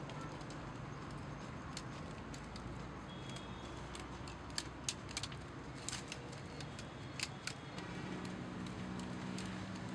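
Thin bamboo sticks of a stool frame clicking and rattling against one another as they are pressed into place and bound with plastic cord, with a few sharp clicks in the middle. A low steady hum comes in near the end.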